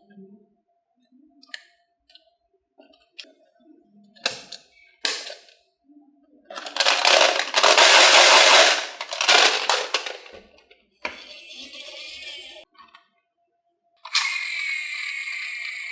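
Marbles on a HABA wooden marble run: a few single clicks and knocks, then a loud rolling rattle of marbles along the wooden track lasting about four seconds, followed by two shorter rattles near the end.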